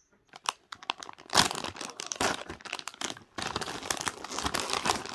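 Squishy slime being squeezed and worked by hand, giving a dense, irregular crackling and crinkling with many small pops.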